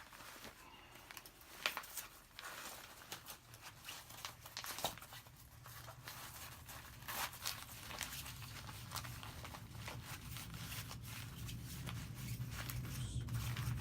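Rustling and scraping of a soft ballistic panel being worked into a nylon vest carrier, with short, scattered rasps of fabric being pulled and tugged. A low hum grows louder toward the end.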